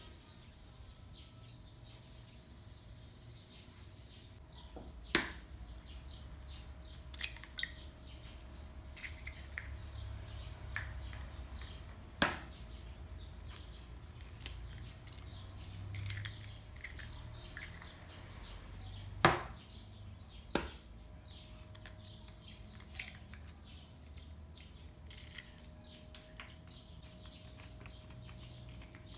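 Sharp kitchen knocks every several seconds, four loud ones in all, over a low steady hum and faint high bird chirping.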